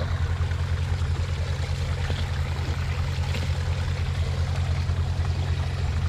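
A steady low droning hum with a fast even throb, over the hiss of a running stream.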